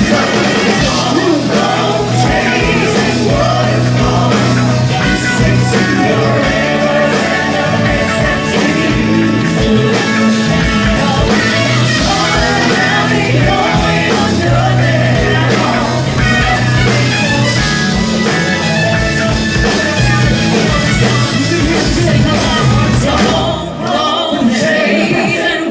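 Background music with a singing voice over a steady beat, dense and continuous, dipping briefly near the end.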